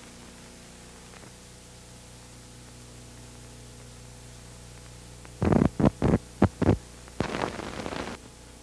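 Steady electrical hum and hiss of an old film soundtrack over black leader. A little past halfway it is broken by a quick run of about five loud thumps, followed by about a second of crackling noise.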